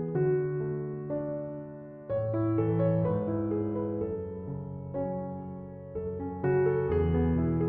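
Background music: electric piano playing chords and a melody, with new chords struck about two seconds in and again near the end.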